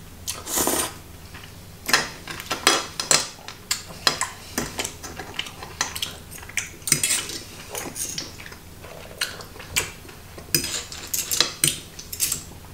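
Metal fork and spoon clinking and scraping against a ceramic plate piled with spaghetti and clams, in irregular short clicks.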